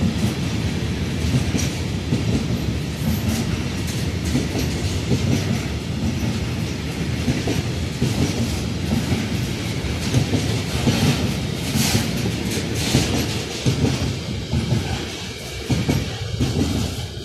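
Container wagons of a long freight train rolling past: a steady rumble of wheels on rail with repeated clacking over the rail joints, easing slightly near the end.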